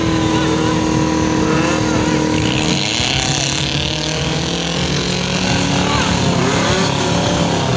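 Off-road competition buggy's engine running under load as it climbs a steep dirt bank, with voices of onlookers over it.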